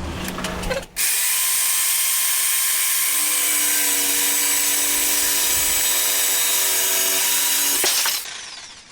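A small electric saw starts suddenly, runs steadily cutting wood, and stops shortly before the end.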